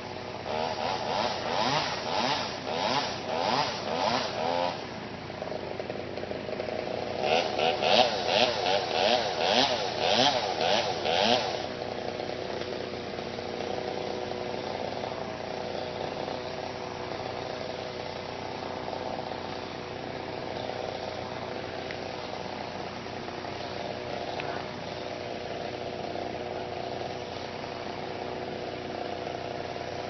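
Chainsaw revving in two stretches of rhythmic pulses, about two a second, over a steady engine drone. The drone carries on alone after the revving stops, about a third of the way through.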